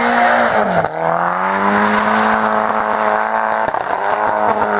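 Drift car's turbocharged CA18DET four-cylinder engine held at high revs as the car slides sideways, with a rush of tyre squeal and scrub. The engine note dips briefly about a second in, then holds steady.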